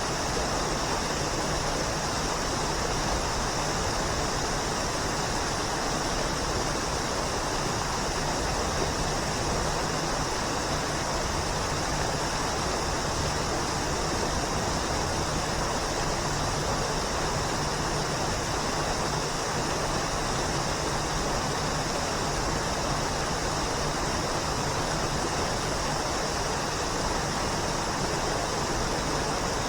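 Waterfall: a steady, unbroken rush of falling water, with a bright hiss on top.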